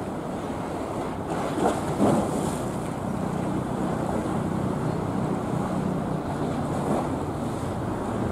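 Wind buffeting the microphone over the wash of open water, with a faint steady low hum underneath.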